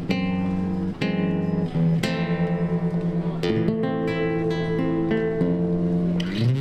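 Acoustic guitar strummed in an instrumental passage of a song, chords struck about once a second over sustained notes.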